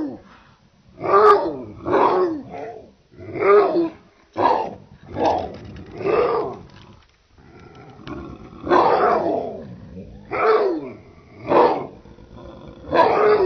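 Deep, growling barks of a big dog, about one a second, each falling in pitch, with a short pause a little past halfway. This is not the chihuahua's own voice.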